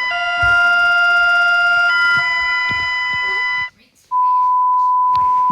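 Emergency alert alarm tones: a loud, steady electronic chord of several pitches that changes to a new chord twice and cuts off about three and a half seconds in. After a short gap comes a single steady beep tone held for about a second and a half.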